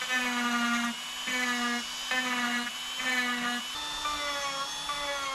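Small electric rotary carving tool whining as it cuts letters into wood. Its tone breaks into short strokes about once a second, then runs on a little higher in pitch from about three and a half seconds in.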